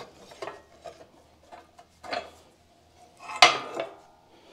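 Metal parts being worked inside a tractor transmission case: a few light metallic clicks and knocks, then a louder clank about three and a half seconds in that rings briefly.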